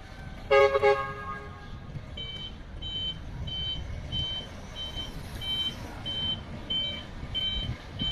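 Electric forklift sounding a short double toot of its horn about half a second in, then its warning beeper starts, a high beep repeating about one and a half times a second, over the low rumble of the truck driving.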